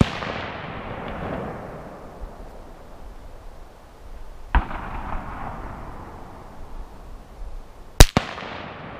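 AR-15 A1 rifle firing on the range: a loud shot right at the start and another a little before the end, with a quieter shot about four and a half seconds in. Each shot trails a long echo that dies away over a second or two.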